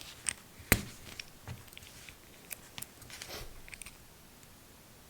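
Small clicks and taps from handling a CAT6 cable's copper wires and a screwdriver while untwisting the pairs, with one sharp knock about a second in and a brief scraping rustle a little past three seconds.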